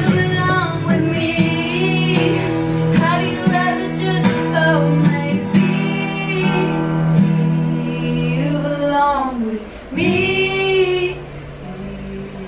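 Two women singing a song in French to a strummed ukulele. The singing breaks off briefly about nine seconds in, comes back with one held high phrase, and the ukulele carries on more quietly near the end.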